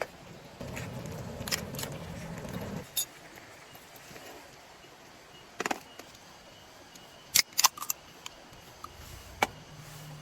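Objects being handled: a stretch of soft rustling, then a handful of sharp clicks and clinks spaced a second or more apart, the loudest two close together about two-thirds of the way in.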